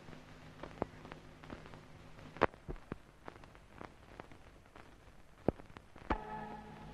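Quiet soundtrack with scattered faint clicks and ticks, two of them sharper: one about two and a half seconds in and one about five and a half seconds in. A faint hum lies underneath, and a faint held tone comes in near the end.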